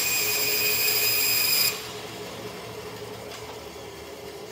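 A vertical bandsaw cutting a strip of plastic, a loud steady high-pitched whine that stops abruptly about two seconds in as the blade clears the cut. The saw then runs on more quietly.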